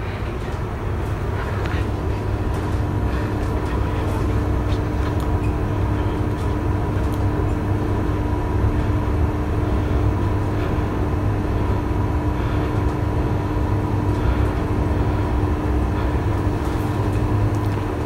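Passenger elevator car travelling upward at speed: a steady low rumble with a constant hum, and a second steady hum tone that comes in a second or two in as the car gets up to speed.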